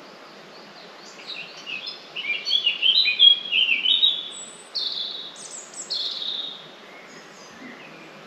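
A songbird singing a quick run of high chirping notes with a few short falling whistles, lasting about five seconds, over a steady faint background hiss.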